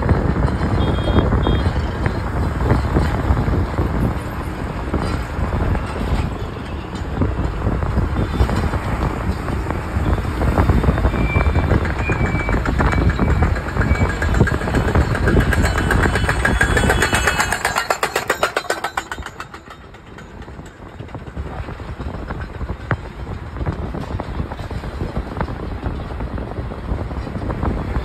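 Road and wind noise heard from inside a moving vehicle with its window open: a steady rumble of tyres and engine with wind on the microphone. It dips sharply about two-thirds of the way through, then builds again.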